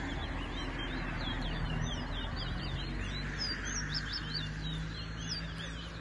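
Towa-towa (chestnut-bellied seed finch) singing a fast, continuous run of short chirping notes in a song-racing contest.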